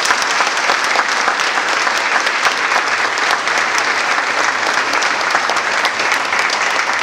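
Audience applauding, many hands clapping steadily after a speech.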